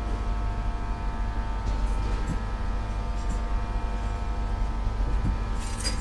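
Steady hum of a stationary train's onboard machinery, a constant low drone with several steady tones over it. Near the end a metallic jingle starts, like keys.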